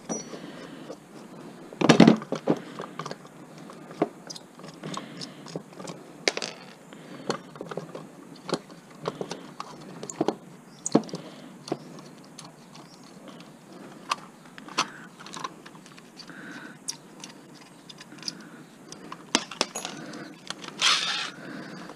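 Small pieces of metal scrap, electrical receptacles and screws, clinking and clattering irregularly as they are handled and sorted by hand, with a louder knock about two seconds in.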